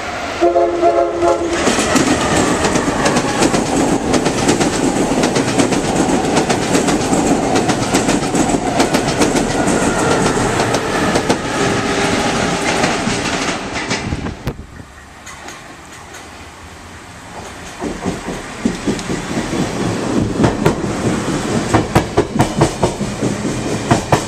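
Amtrak Acela Express high-speed trainset passing at speed. Its horn sounds a brief chord at the start, followed by a loud rush of the train going by that eases for a few seconds midway. It then builds again into a rapid clickety-clack of the passenger cars' wheels over the rail joints.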